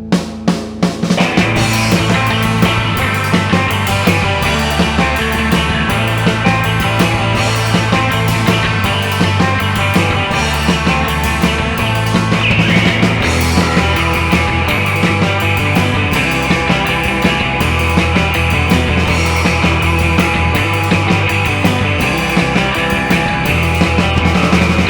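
Instrumental rock band playing live: drums, bass and distorted, effects-laden electric guitar. A drum fill in the first second brings in the full band, which drives on steadily with a moving bass line.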